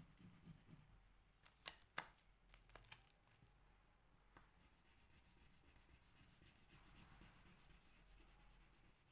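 Faint crayon scribbling on paper, broken about a second and a half in by a few sharp clicks as the crayon is put down and another is taken from the box, then faint scribbling again near the end.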